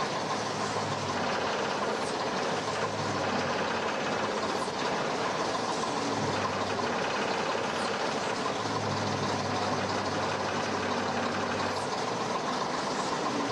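Heavy crane lorry's engine running steadily while it lifts a steam traction engine, with a low hum that rises and falls now and then.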